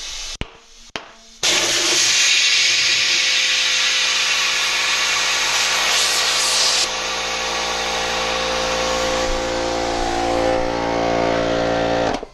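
Compressed air rushing through a hollowed-out air chuck into a motorcycle tire with the valve core removed, to seat the beads on the rim, over the steady hum of a small air compressor running. After a couple of clicks it starts suddenly about a second and a half in, runs loud and steady, and cuts off just before the end; both beads pop onto the rim during the blast.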